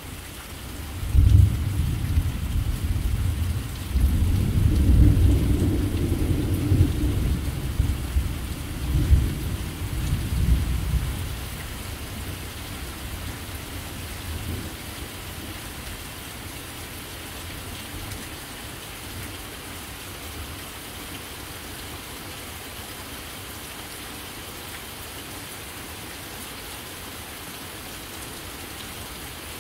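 Thunder rumbling over steady rain: it starts suddenly about a second in and rolls in several surges for about ten seconds before fading, leaving the rain hissing on its own.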